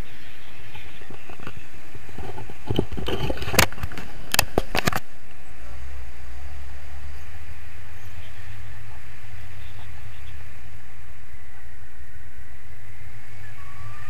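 Steady rush of wind over the microphone of a camera mounted on a paraglider in flight. Between about three and five seconds in there is a cluster of sharp knocks and crackles.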